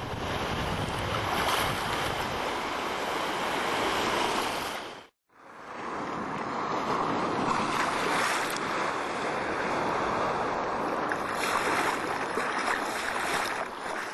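Small waves washing in shallow sea water at the surf line, with wind on the microphone. The sound cuts out briefly about five seconds in.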